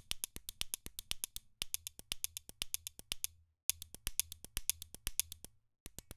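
Sampled pen clicks and snaps played in a fast sixteenth-note pattern by Kontakt 5's arpeggiator: quick, dry clicks and taps, about eight a second, in runs broken by three short pauses.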